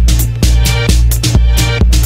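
Background music with a steady, fast beat, roughly two to three strokes a second, over a heavy bass line.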